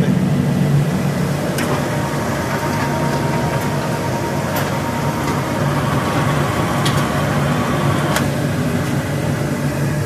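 Wood pellet burner on a steam boiler running, a steady mechanical drone. A faint high whine sets in about a second and a half in and stops with a click about eight seconds in.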